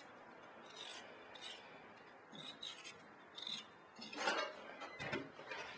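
A potato being peeled by hand with a small blade: repeated short scraping strokes across the skin, spaced about half a second to a second apart. Louder rustling comes in over the last couple of seconds.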